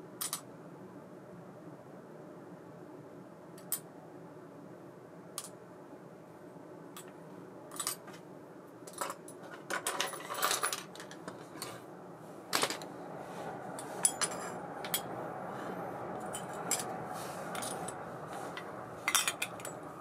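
Small metal reel parts, such as screws, washers and bearings, clinking against shallow stainless parts trays and against each other as they are handled. The light clicks come one at a time, with a busier run of clinks about ten seconds in.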